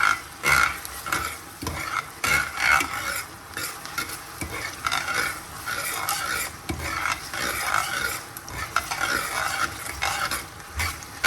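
Onions caramelizing in brown sugar, sizzling in a frying pan while being stirred, a utensil scraping across the pan in repeated strokes.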